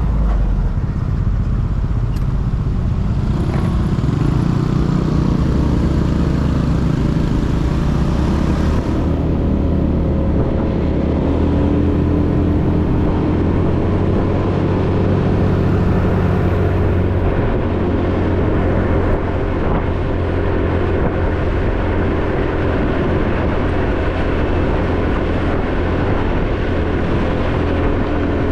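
Motorcycle engine running under way, rising in pitch a few seconds in as the bike accelerates, then holding steady at cruising speed.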